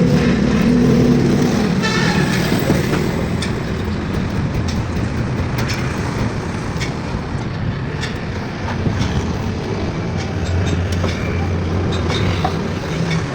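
Vehicle engines running amid traffic noise, with a short horn toot about two seconds in and scattered knocks.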